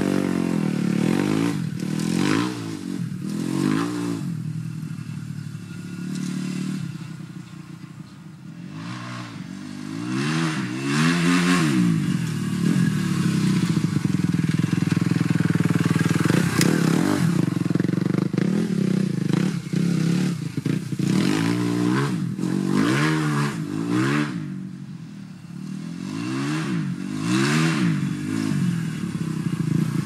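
2012 Kawasaki KX250F single-cylinder four-stroke motocross bike with an FMF 4.1 exhaust, revved up and down over and over while spinning its rear wheel in snow. A long stretch near the middle is held at high revs, with two brief quieter lulls where the revs drop.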